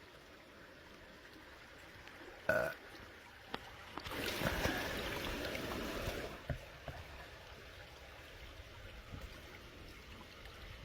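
Creek water running steadily in the background. A short pitched sound comes about two and a half seconds in, and from about four seconds in there are roughly two seconds of louder rushing noise.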